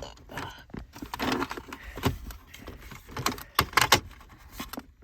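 Clicks, knocks and rattles of hard plastic dashboard trim and the AC control panel being pried and pulled loose by hand, loudest in a cluster of sharp clicks at about three and a half to four seconds in.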